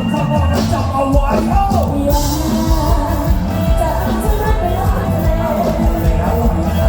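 Live Thai band music with a female singer, over a strong bass beat and steady drum hits.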